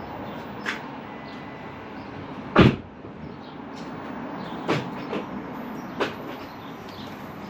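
Steady low drone from a tuned Nissan R35 GT-R with its twin-turbo V6, broken by a few short knocks and one loud thump about two and a half seconds in.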